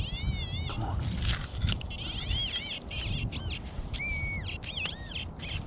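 Metal detector target tones: a string of short beeps near 2 kHz whose pitch swoops up and down with the signal, over low scraping and crunching noise.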